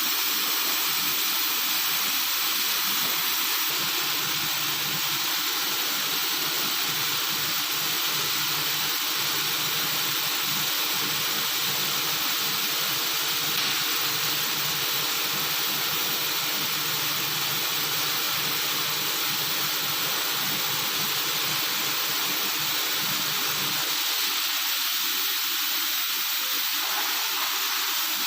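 Thin-wall spiral tube welding machine running: a steady hiss with a faint low hum that drops out about 24 seconds in.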